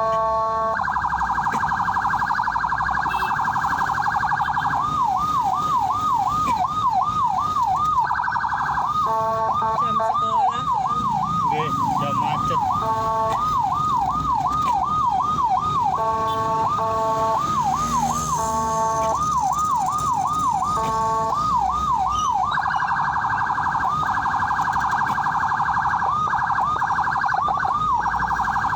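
Ambulance electronic siren switching between patterns: a fast warble, a yelp sweeping up and down about three times a second, and short bursts of a steady multi-tone horn blast. It returns to the fast warble for the last few seconds.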